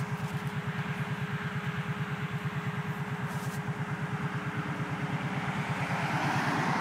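ATV engine idling with a rapid, even beat; a rushing noise swells near the end.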